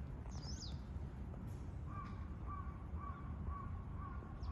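Wild birds calling: a short high chirp near the start, then from about two seconds in a run of short, evenly spaced calls, about two a second, over a low steady background rumble.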